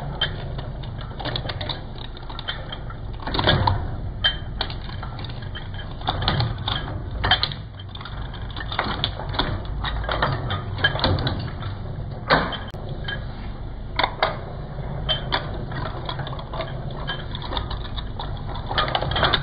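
Twin-shaft shredder running with a steady low hum while its cutter discs crunch Playmobil figures, the hard plastic cracking and snapping irregularly. The loudest cracks come about three and a half seconds and twelve seconds in.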